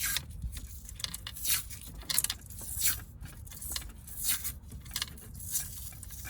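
Cloth wiring-harness tape (Tesa tape) being pulled off the roll and wrapped back around a car's wiring harness: a series of short, scratchy rasps, about one or two a second.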